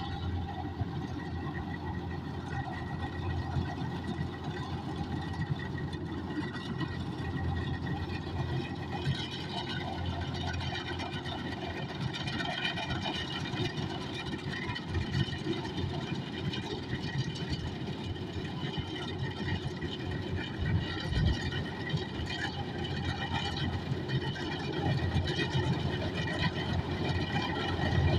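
Kubota DC105X combine harvester running steadily under harvesting load: a deep diesel engine drone with a steady high whine from its machinery on top, growing a little louder near the end.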